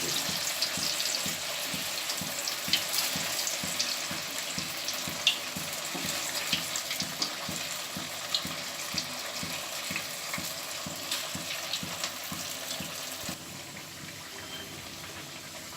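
Boiled baati dough balls deep-frying in hot oil: a steady sizzle scattered with small crackles, easing slightly near the end.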